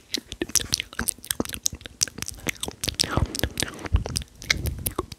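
Close-miked wet mouth sounds: rapid tongue clicks, lip smacks and moist pops, several a second, with a few short breathy swishes.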